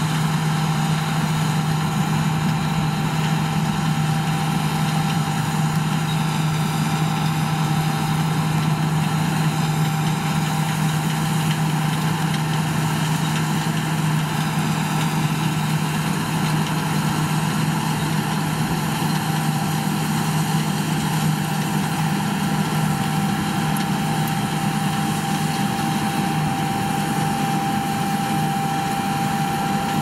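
John Deere T660 Hillmaster combine harvester running under load while harvesting barley: a steady, even engine drone with a thin steady whine above it.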